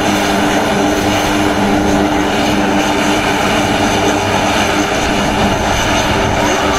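Four-engine turboprop of a Lockheed C-130J Super Hercules running on the ground, a loud, steady propeller drone with an even hum underneath.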